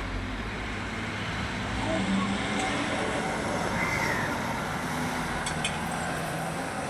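Steady motor-vehicle engine and road noise, with faint voices in the background.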